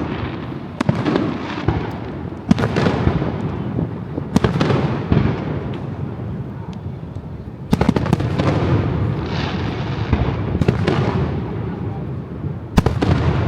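Aerial fireworks shells bursting at a public display: a sharp bang every two or three seconds, each followed by a longer fading rumble.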